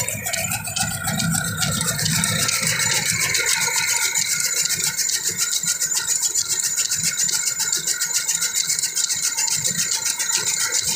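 Chaff cutter (toka) running under load, its belt-driven flywheel and blades chopping fodder with a rapid, even rattle. A lower hum underneath drops away about three and a half seconds in.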